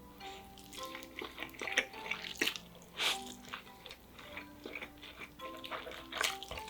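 Close-miked eating sounds: wet chewing, smacking and sharp crackly clicks of a mouthful of food, irregular and a few louder than the rest, over soft background music with steady mallet-like notes.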